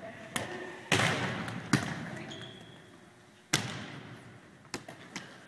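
Volleyballs being struck and bouncing on a wooden gym floor: a string of about six sharp smacks and thuds, the loudest about a second in, just under two seconds in and past the halfway point, each one echoing in the large gym.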